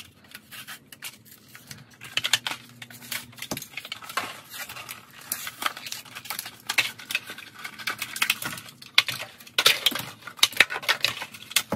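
Hot Wheels blister packs being torn open by hand: crinkling and crackling plastic and cardboard, with small clicks and clatters from the die-cast cars being handled.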